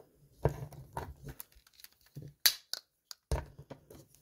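Hard plastic parts of a Power Rangers Mosa Razor Zord toy clicking and knocking as hands adjust it and try to stand it upright. The clicks come irregularly, with a couple of sharper clacks past the middle.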